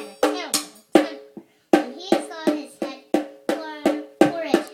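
Musical accompaniment played by hand: a quick, even run of short struck pitched notes with drum-like hits, about four a second.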